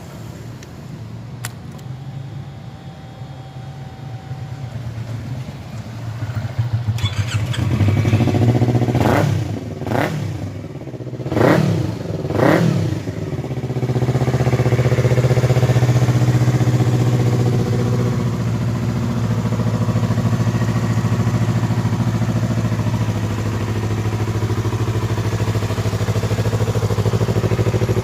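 Yamaha MT-25 motorcycle's 249 cc parallel-twin engine running. It is blipped sharply four times, each rev rising and dropping back, then settles into steady running.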